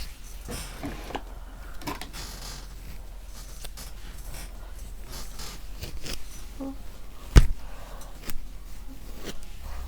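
Small handling noises, rustling and light clicks, with one sharp knock about seven and a half seconds in, over a low steady hum.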